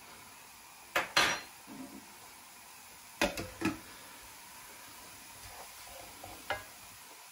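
Pots and pans being handled: five or so sharp clinks and knocks from a saucepan's glass lid and a frying pan, the loudest a little over a second in.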